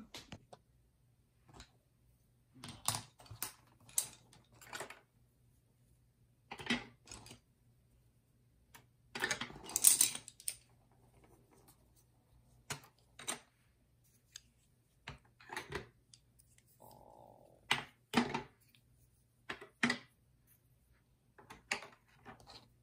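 Scattered light clicks and taps of colored pencils and art supplies being handled and set down on a desk and cutting mat, with a louder rustling burst about nine seconds in. A faint steady low hum runs underneath.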